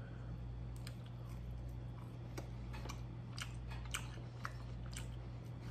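Someone chewing a Gardein breaded plant-based chicken nugget tossed in buffalo sauce, close to the microphone: a string of small, irregular crisp crackles from about a second in. A steady low hum sits underneath.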